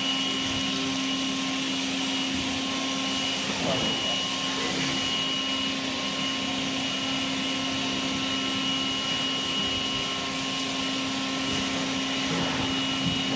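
Brother Speedio CNC machining centre milling an aluminium plate at high speed: a steady mechanical hum with a high whine that drops out and returns several times.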